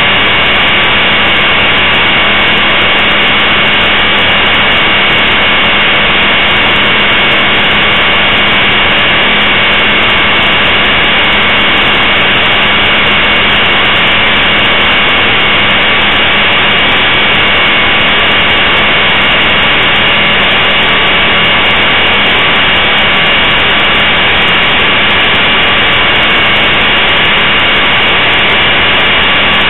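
Blade 450 3D electric RC helicopter's brushless motor, gears and main rotor running steadily, picked up by a camera mounted on the helicopter itself. A constant whine sits over heavy rotor-wash and wind noise.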